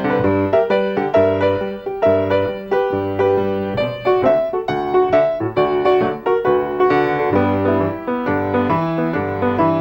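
Piano music: quick, closely spaced melody notes and chords over low bass notes that return about once a second.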